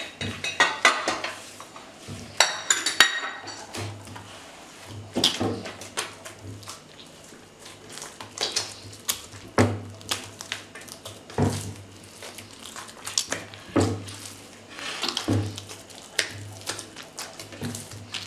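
Hands kneading wet bread dough in a glazed terracotta dish. Knuckles press and push the dough against the clay, giving soft squishes and irregular knocks every second or two, with a brief ringing clink about two and a half seconds in.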